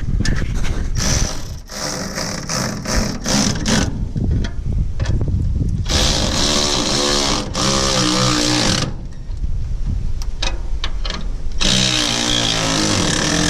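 A power wrench run in bursts, tightening the bolts on a truck's exhaust clamps. First come several short spurts, then two longer runs of a few seconds each, over a constant low rumble.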